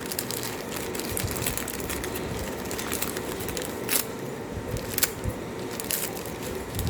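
Small items and their packets being handled and rummaged through, a steady rustle with many light clicks and two sharper clicks about four and five seconds in.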